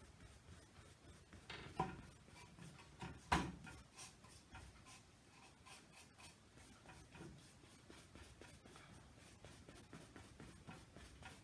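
Paintbrush bristles scratching acrylic paint onto a stretched canvas in many short strokes, a faint rubbing, with two louder taps about two and three seconds in.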